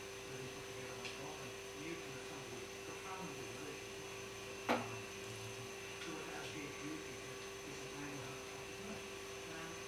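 Steady electrical hum over a faint low murmur, broken by a single sharp click about halfway through.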